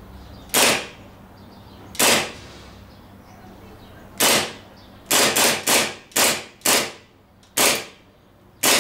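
APS 1911 gas blowback airsoft pistol firing about ten single shots, each a sharp crack with the slide cycling back. The shots come a second or two apart at first, then in a quicker run of five near the middle, then two more near the end.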